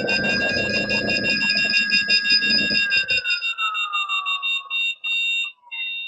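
Begode ET Max electric unicycle hub motor spinning the wheel fast, running with a whine and a rumble. The rumble cuts off about three seconds in, and the whine then falls in pitch as the wheel slows. Rapid progressive PWM alarm beeps from the Bluetooth helmet sound over it, stopping just before the end.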